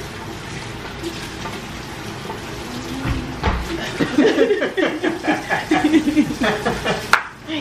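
Liquor trickling from a bottle into shot glasses for the first few seconds. Then wordless voices and humming, and a single sharp clink near the end.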